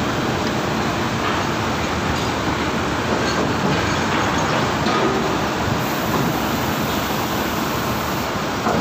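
Concrete mixer truck running close by: a steady diesel engine rumble with no breaks or changes.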